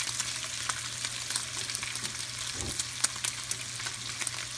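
Diced turkey bacon sizzling in hot oil in a frying pan, with a steady hiss and scattered sharp pops and crackles.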